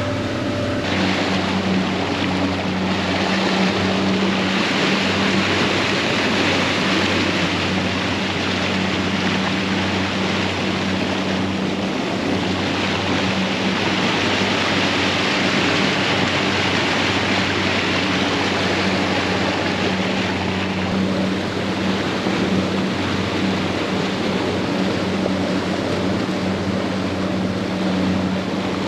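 Small fishing boat's petrol engine running steadily under way, with water rushing along the hull.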